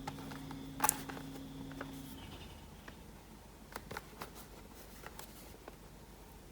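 Scattered light clicks and taps of a product box and packaging being handled, the sharpest just under a second in. A steady low electrical hum runs under them and cuts off about two seconds in.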